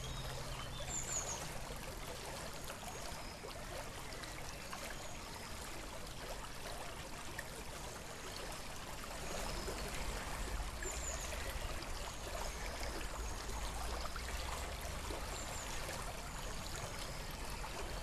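Marsh ambience: a steady trickle of shallow water, with faint high bird chirps now and then.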